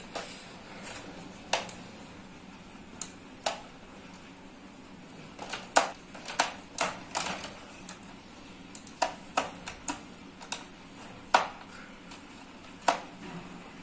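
Screwdriver working at the tight mounting screws of an old CRT television's speaker: sharp clicks and taps of the tool on the screws and plastic cabinet, coming irregularly, at times several within a second.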